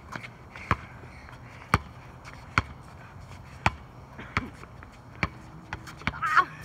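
A basketball being dribbled on an outdoor court, with a sharp bounce about once a second. A brief high-pitched squeal near the end is the loudest moment.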